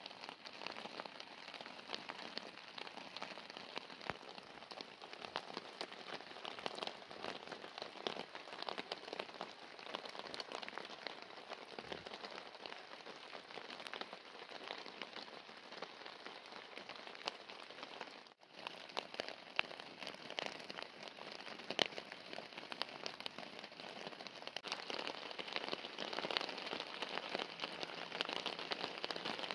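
Rain falling on the fly of a Gonex teepee tent, a dense, steady patter of drops on the fabric that cuts out for an instant about 18 seconds in.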